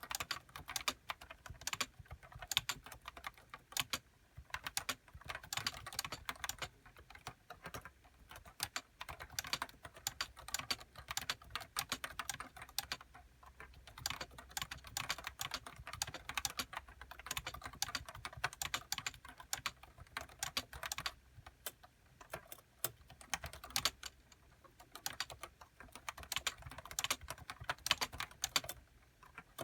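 Typing on a Nissho KB106DE keyboard with Topre 30 g uniform-weight switches and HiPro keycaps. Fast, continuous keystrokes with a few short pauses.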